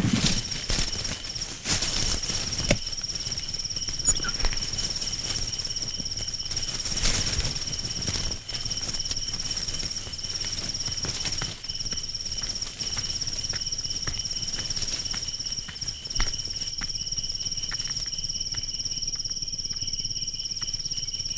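Crickets chirping steadily in a continuous high trill, with a few scattered knocks and clicks in the first several seconds.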